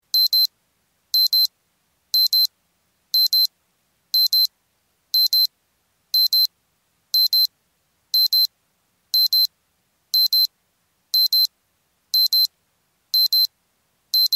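Digital alarm-clock beeping as a countdown timer reaches zero, signalling that time is up: high-pitched double beeps, one pair every second.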